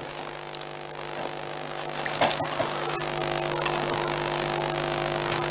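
Steady electrical hum and hiss of an open telephone line, growing gradually louder, with a faint brief disturbance about two seconds in.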